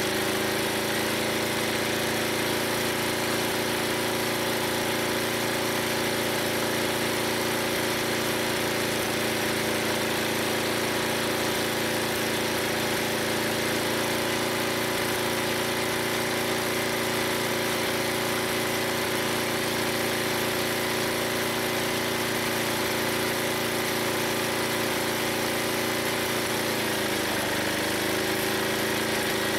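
Old 11 HP Briggs & Stratton gas engine running steadily, driving a log splitter. Near the end its speed dips briefly and picks back up as it takes load.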